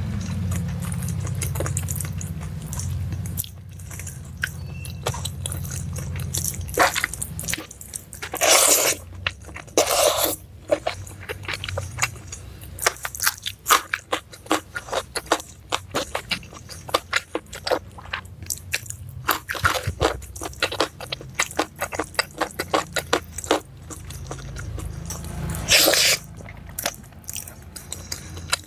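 Close-up eating sounds of a Padang rice meal eaten by hand: crunchy chewing and wet mouth clicks. A few longer, louder bursts come about a third of the way in and near the end. A low rumble in the background fades out about three seconds in.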